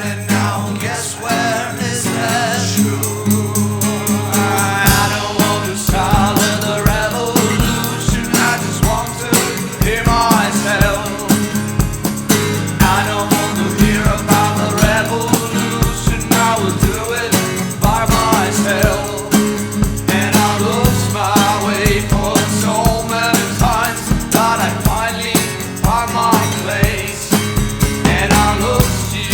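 Rock song: a male lead vocal sung over guitar, with a drum kit coming in about five seconds in and keeping a steady beat.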